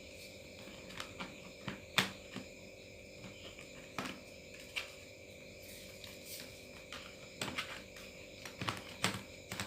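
Removable battery pack being fitted back into a Lenovo G40-45 laptop: scattered sharp plastic clicks and knocks, the sharpest about two seconds in and at four seconds, with a small cluster near the end, over a faint steady background hum.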